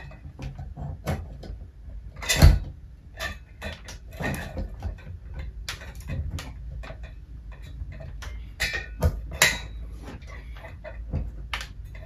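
Scattered clicks and knocks of a ceiling fan's metal motor housing being pressed up against its ceiling mounting plate and twisted onto two loose screws, with a sharper knock a couple of seconds in.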